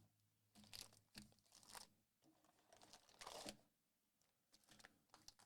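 Faint crinkling and tearing of trading-card pack wrappers being opened, in a few short bursts with the longest about three seconds in.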